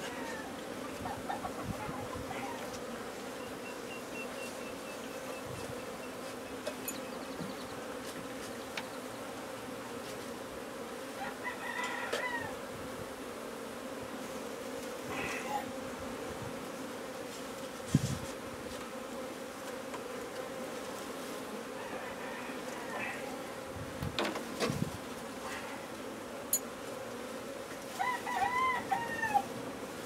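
Honey bees from an opened feral colony buzzing in a steady hum around the hive cut-out. A chicken calls twice, once near the middle and once near the end, and there are a few sharp knocks from handling the wooden frame.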